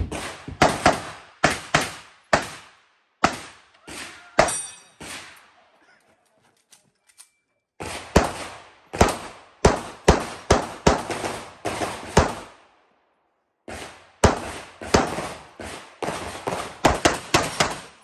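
Handgun shots fired rapidly at targets during a practical shooting course of fire, mostly in quick pairs, with two pauses of a second or two between strings of shots.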